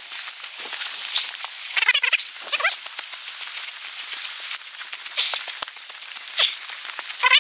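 Footsteps crunching through dry grass and fallen dry leaves, a continual crackle of short snaps. About two seconds in come two short wavering vocal sounds.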